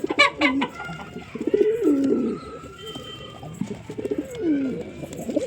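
Pigeons cooing: low coos that slide downward in pitch, two main ones about three seconds apart, after a brief cluster of sharp, higher sounds at the very start.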